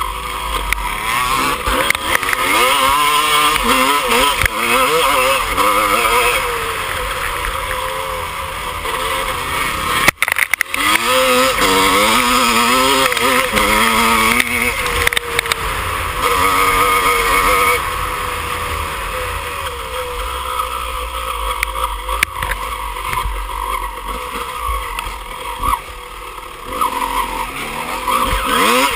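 Dirt bike engine revving hard, its pitch climbing and dropping again and again as the rider accelerates and shifts through the gears in an off-road race, with wind rushing over the microphone.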